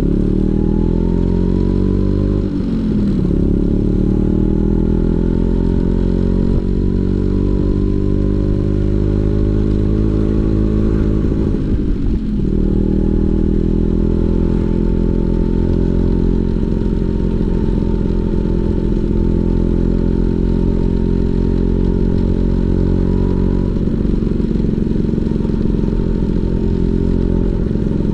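Vespa PX 150 two-stroke engine through a DRC Victory Racing aftermarket exhaust, under way. It climbs in pitch, drops at a gear change about two and a half seconds in, climbs again and shifts once more about twelve seconds in, then holds a steady cruising note.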